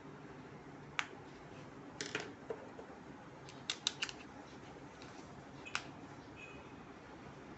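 Handling of the hair trimmer kit's parts and packaging: a handful of short, sharp clicks and taps at irregular intervals over a faint steady hiss. The trimmer's motor is not running.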